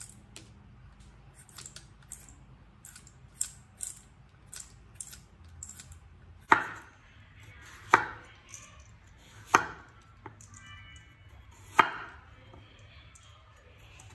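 Vegetable peeler scraping a raw potato in quick short strokes, then a cleaver slicing through the peeled potato onto a wooden cutting board: four loud chops, one every second and a half or so.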